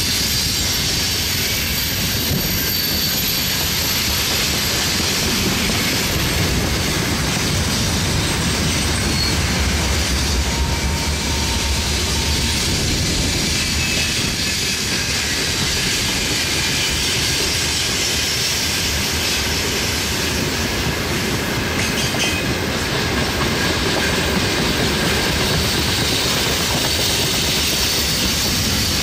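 Loaded freight wagons rolling steadily past: wheels on rail joints and a continuous rolling rumble of a long train. At times there is a faint squeal of wheels on the curve.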